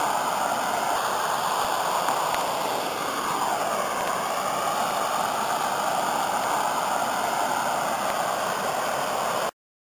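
Flash-flood water pouring over a waterfall and churning below it: a steady rushing of water that cuts off abruptly near the end.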